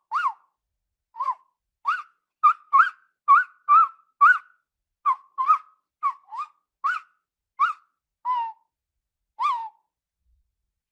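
Tapir giving a run of short, high-pitched whistling calls, about sixteen in all, each quickly rising and falling in pitch, at roughly two a second and stopping about a second before the end.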